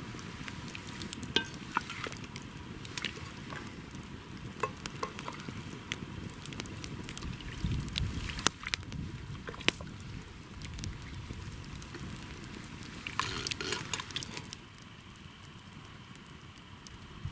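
Wood campfire crackling with scattered sharp pops, while a metal ladle scoops soup from a pot and clinks against an enamel bowl; a quick run of clicks and knocks comes near the end.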